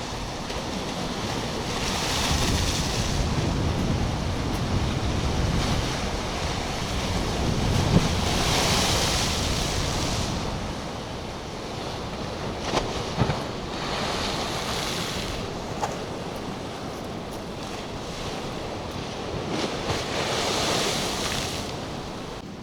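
Black Sea surf: waves breaking on the shore in slow swells about every six seconds, with wind buffeting the microphone.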